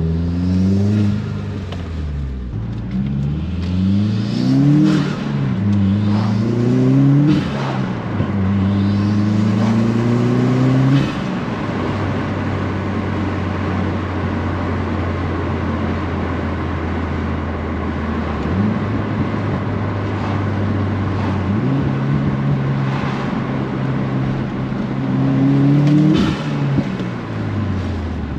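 2018 Subaru WRX's turbocharged FA20 flat-four accelerating, heard through open windows. The revs climb and drop at each of several upshifts, hold steady for several seconds, then step up and climb again before dropping near the end. The turbo intake is super loud, with an aftermarket GrimmSpeed cast aluminum turbo inlet fitted.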